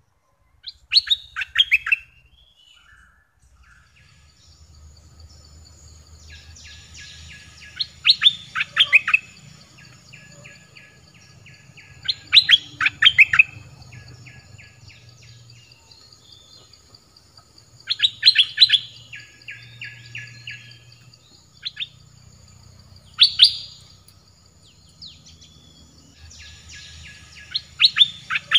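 Bulbul singing: six loud phrases of quick, sharply falling whistled notes, about every five seconds, with rapid chattering trills between them. A steady high insect-like hum runs under the song.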